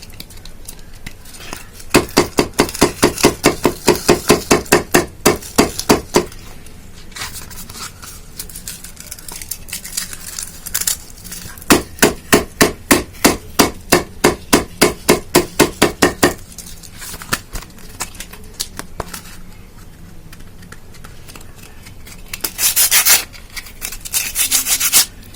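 Emery paper being worked with rapid, regular scraping strokes, about six a second, in two runs of about four seconds each. There is a short rustle near the end.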